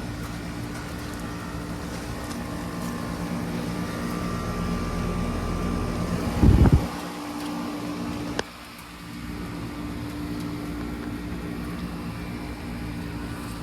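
Outdoor heat pump units running in heat mode with a steady hum of compressors and fans. About six and a half seconds in there is a brief loud low thump, and two seconds later a sharp click, after which the sound drops for a moment before the hum returns.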